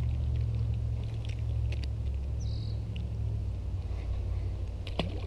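Steady low rumble of wind on the microphone, with scattered light clicks, a short high chirp about two and a half seconds in, and a quick falling whistle near the end.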